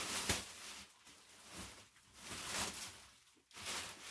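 Thin plastic wrapping being pulled off a mattress, rustling and crinkling in several swells, loudest at the start.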